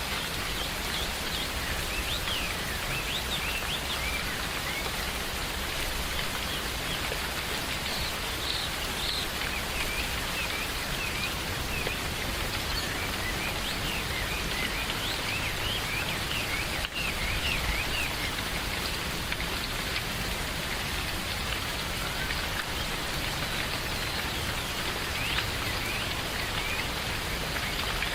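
Steady rain falling, with many short, high bird chirps scattered over it and a single sharp click about 17 seconds in.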